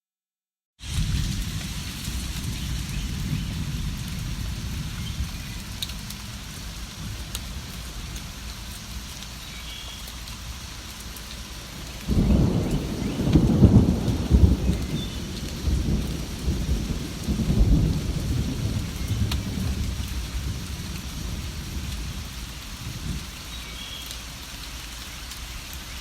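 Steady rain with a low rumble underneath, beginning about a second in after a brief gap of silence. About halfway through a roll of thunder breaks in suddenly, the loudest part, and rumbles for several seconds before fading back into the rain.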